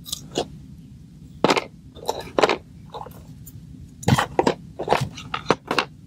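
Dry, crumbly plant material crackling and crunching as hands crumble and sprinkle it into a box: a run of short, sharp, irregular crackles, most frequent in the second half.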